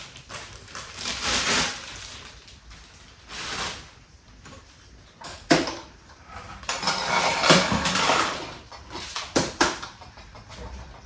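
Rustling and crinkling of plastic packaging while vacuum parts are handled, with a few sharp plastic clicks and knocks, two of them in quick succession near the end.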